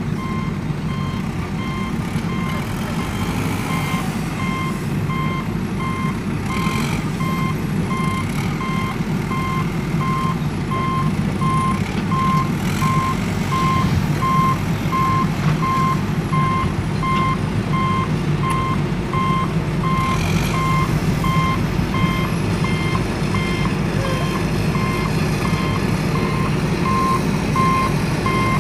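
Truck engine running with a steady low rumble under a continuous, evenly repeating electronic warning beeper from the crane truck while its truck-mounted knuckle-boom crane works.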